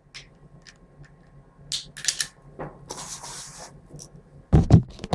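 An STI GP6 pistol being handled: short scrapes and sliding of its parts, then a quick run of loud, sharp clacks near the end.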